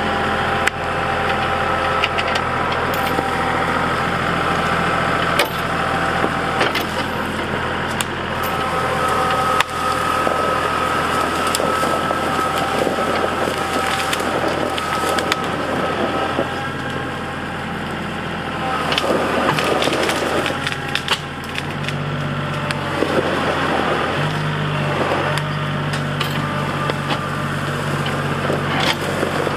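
Compact tractor engine running steadily as it drags a felled maple log on a chain, with branches cracking and snapping through the brush. The engine revs rise twice late on as it pulls harder.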